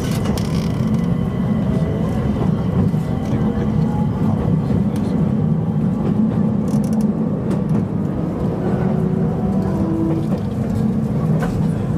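Electric commuter train running along the line, heard from inside the front car: a steady rumble of wheels on rails and running gear, with faint wavering whine over it.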